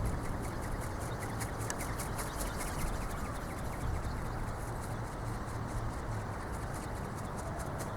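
Strong wind rumbling on the microphone, with the fast, even crackle of an ornithopter's plastic-film wings flapping.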